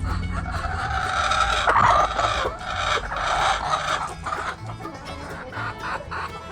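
Rooster crowing in one long drawn-out crow that ends about four and a half seconds in, with hens clucking around it.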